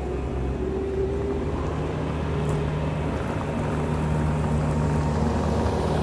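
Bobcat T650 compact track loader's diesel engine running steadily as the machine drives up and past, slowly growing louder as it comes closer.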